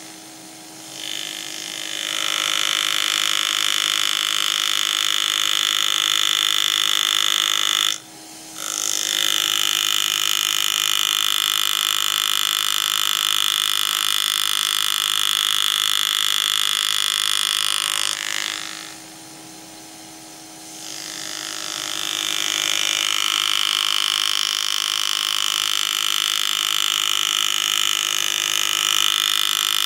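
Pneumatic engraving handpiece buzzing as its graver cuts into a metal coin, a steady high-pitched whir. It builds up about a second in, stops briefly around a third of the way through, and drops out for a couple of seconds past the middle before building up again.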